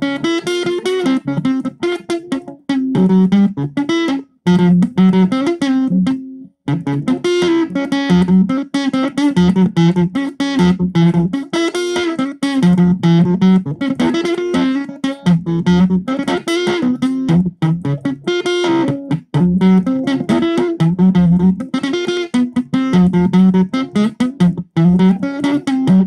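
Distorted electric guitar played through a Zoom 506 bass distortion pedal: a repeating riff of short picked notes, with a brief break about six seconds in.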